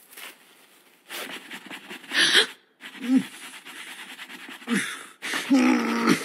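Heavy panting breaths broken by short, strained grunts with falling pitch.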